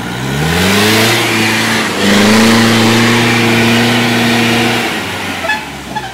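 Off-road jeep engine revving up over about a second and held at high revs under heavy load, with a brief dip about two seconds in, then dropping off near the end; spinning tyres churn the mud as it tows another jeep out of deep mud on a strap.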